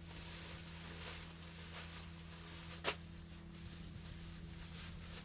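Quiet room tone with a steady low electrical hum, and one sharp click about three seconds in, from small parts being handled during controller reassembly.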